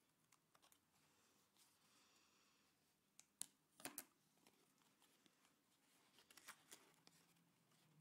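Faint rustling and crinkling of folded red craft paper being handled and opened out, with a few sharp paper crackles a little over three seconds in and again past six seconds.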